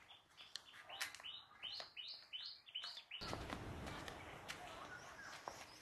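A bird calling a quick series of about five repeated chirps, then falling quiet, faint over outdoor background noise with a few scattered clicks.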